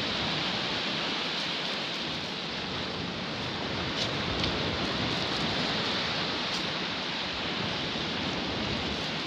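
Small sea waves washing steadily onto a sandy beach, an even hiss of surf with a few faint ticks.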